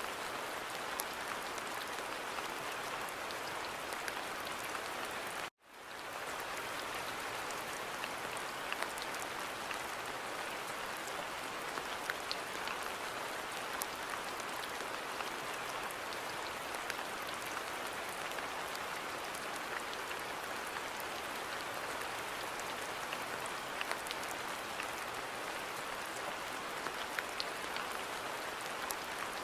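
Steady rain falling in a garden, a constant hiss with scattered individual drops ticking through it. About five seconds in it cuts out suddenly for a moment, then swells back.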